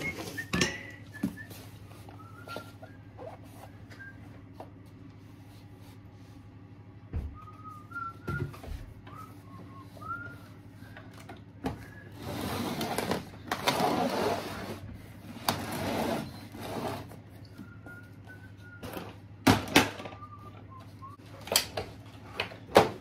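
Rustling and knocking of toys and fabric storage boxes being handled and put away. Faint short whistled notes come and go, with a longer stretch of rustling about halfway through and a few sharp knocks near the end.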